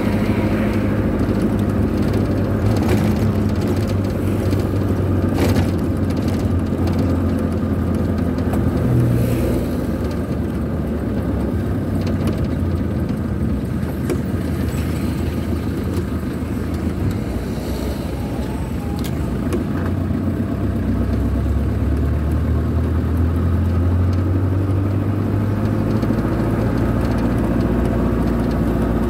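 Motor vehicle engine running at road speed, heard from inside the cab, with steady tyre and road noise; the engine note shifts with speed, rising in the last third.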